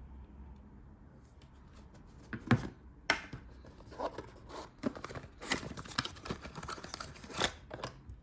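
Phone box packaging being opened by hand: a run of sharp tearing and crinkling rasps with small clicks, starting about two seconds in, the loudest near the start of the run.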